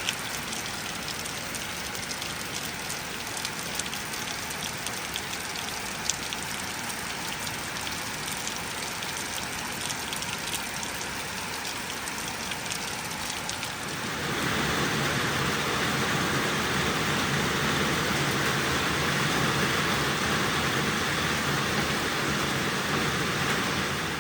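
Rain falling steadily, with scattered sharp drip ticks; about fourteen seconds in it grows louder and denser.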